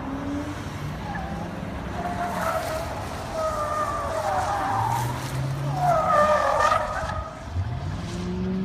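Police cars taking tight turns around cones at high speed, tyres squealing in several long wavering squeals, the loudest about six seconds in. Engines rev up near the start and again near the end.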